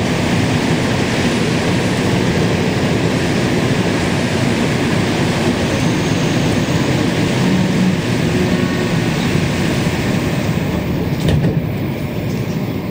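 Rubber-tyred Montreal Metro Azur train running through the tunnel, heard from inside the car: a steady rumble and rush of running noise, with a sharp knock near the end.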